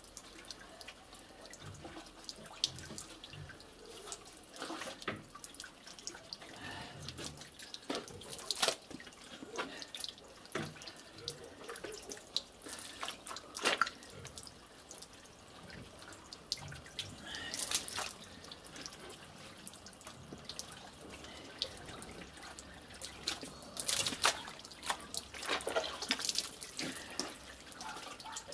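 Soaked paper pulp, made from cardboard and cement bags, scooped by hand from a cement mixer drum and dropped into a briquette press mould: irregular wet splats and dripping water, a few louder slaps among them.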